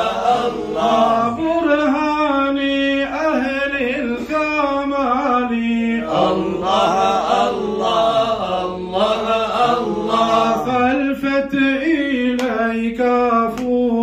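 A male voice singing Sufi praise (madih) without instruments, in long melismatic phrases with slow rises and falls in pitch, held notes sliding between tones.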